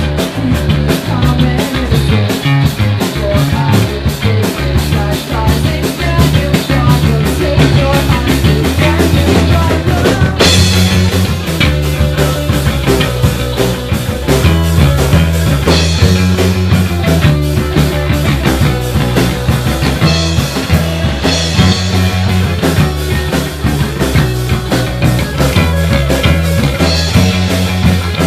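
Rock band playing live with guitar and drums, loud and dense. The cymbals get louder about ten seconds in.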